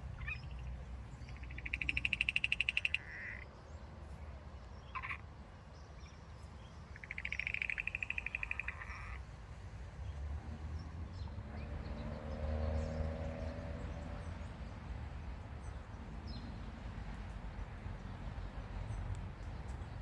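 A frog calling twice, each call a fast rattling trill of about a second and a half, over a steady low rumble.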